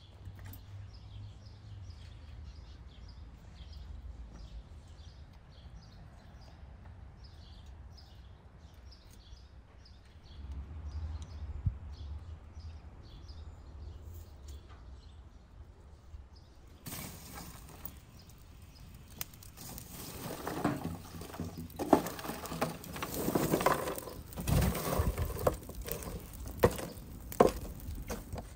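Faint bird chirps over a low hum. From a little past halfway, a wood fire crackles loudly with sharp, irregular pops.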